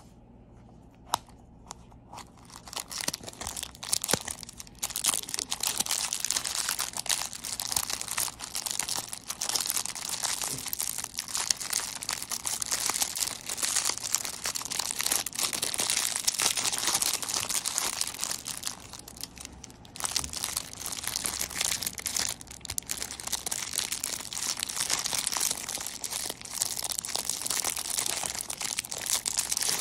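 Clear plastic wrapper crinkling and crackling as a squishy toy is unwrapped by hand. A sharp click comes about a second in, the crinkling starts about two seconds in, and it eases briefly about two-thirds of the way through before going on.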